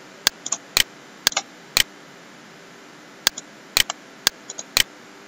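Computer mouse clicking while operating CAD software: about a dozen sharp clicks at irregular spacing, some in quick pairs, with a pause of over a second in the middle, over a steady faint hiss.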